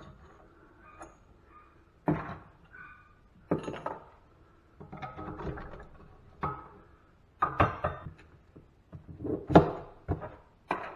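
A steel tool scraping and prying inside the rusted valve chamber of a cast-iron farm water pump, with scattered clinks and knocks of metal tools and small parts on a wooden workbench. The loudest knock comes near the end.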